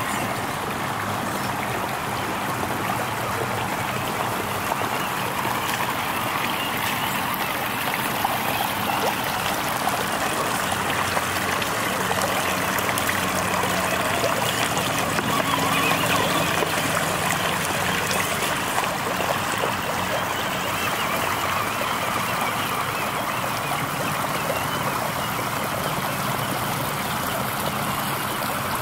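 Shallow rocky creek running and gurgling steadily, with water churned by a Traxxas TRX-4 Sport RC rock crawler driving through it.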